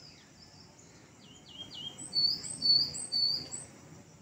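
A small songbird singing close by: three quick falling whistles about a second in, then three louder, higher whistled notes.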